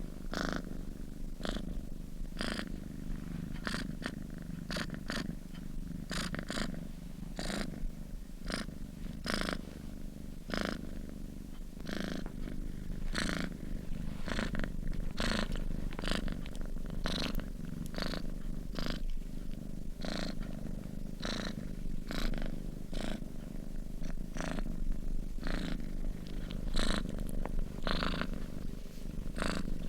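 Sleeping domestic cat purring steadily, a continuous low rumble, with short sharp crackles at irregular intervals, about one or two a second.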